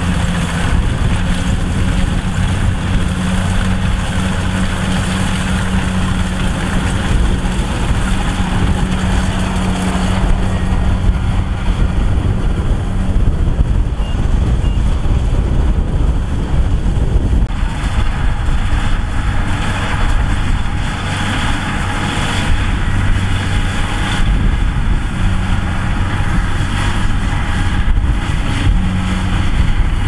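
Kubota DC108X combine harvester's diesel engine running steadily at working speed, a constant hum with a loud rushing noise over it.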